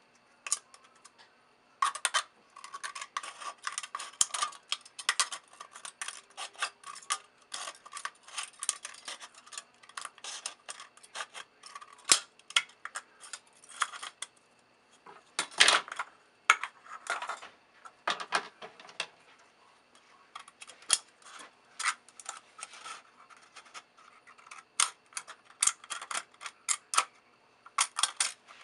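Scissors cutting the thin aluminium wall of a soda can: a long run of quick, crisp snips with the metal crinkling, beginning about two seconds in with short pauses.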